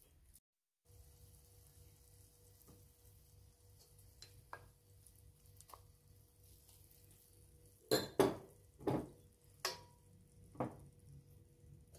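A wooden spatula stirring and scraping chopped vegetables in a stainless steel pan, with faint light clicks. About eight seconds in come five sharp knocks and clinks as the spatula and a ceramic bowl strike the pan and bowl rim while the vegetables are scraped out of the bowl.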